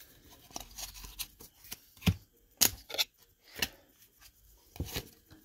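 A stack of baseball trading cards flipped through by hand, each card sliding off the stack with a short papery snap, at an irregular pace of a snap every half second to a second.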